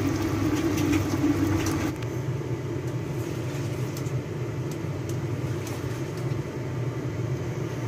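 Pork hocks simmering in a braising liquid in a pan: light bubbling and crackling over a steady low hum. About two seconds in the sound drops a little and only the steady hum carries on.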